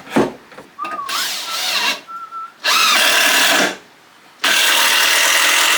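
Handheld power drill boring into 4x2 timber: a knock, then a short burst of the drill about three seconds in, then the drill running steadily from about four and a half seconds in.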